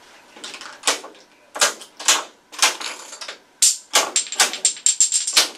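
Homemade Rube Goldberg chain-reaction machine starting to run: an irregular string of sharp clicks, clacks and knocks as its parts trip one another, coming faster in the second half, with a thin high ring over the last couple of seconds.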